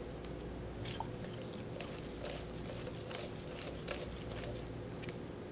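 Light metallic clicks and ticks as the left-hand-threaded sleeve nut of a PG7601 piston-cylinder module is unscrewed by hand, coming about two to three a second through the middle stretch, over a steady low hum.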